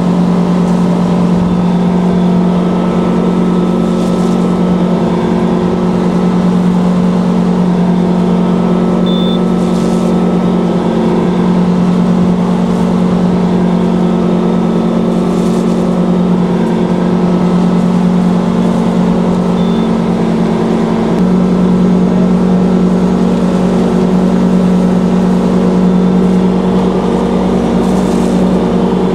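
Ski tow boat's engine running steadily at towing speed while pulling a slalom water skier, a constant loud drone heard from on board. Its tone shifts slightly about two-thirds of the way through.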